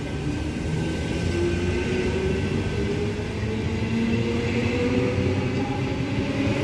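Electric suburban passenger train moving out along the platform and gathering speed. Its traction motors whine in several tones that rise steadily in pitch over the low rumble of the wheels on the rails.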